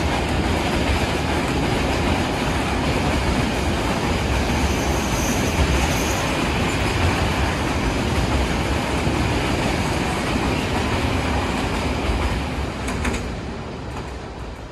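Loaded open freight wagons rolling past on the rails: a steady rumble with wheel clatter and a brief high squeal about five seconds in. The sound fades away from about twelve seconds in as the last wagon goes by.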